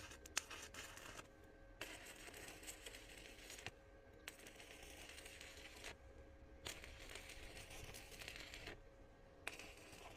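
Faint electric arc-welding crackle and hiss in spells of about two seconds, broken by short pauses, with a few small clicks.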